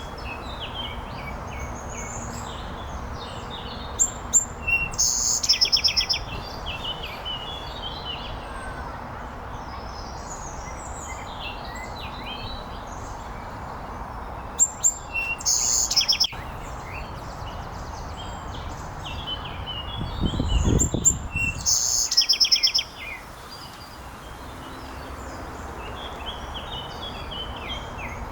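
Songbirds singing in a forest, with many short high chirps throughout. A louder bird repeats a fast trilled phrase three times, about 4, 15 and 21 seconds in. There is a steady background hiss and a brief low rumble near the third phrase.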